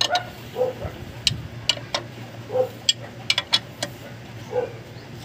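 Sharp metallic clicks of a wrench working the clutch pressure-plate bolts on a Suzuki Multicab flywheel: a few irregular clicks, then a quick cluster about three seconds in. A dog yips about once a second in the background.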